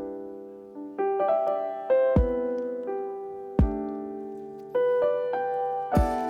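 Background lofi music: mellow electric-piano chords with a slow, soft low drum beat.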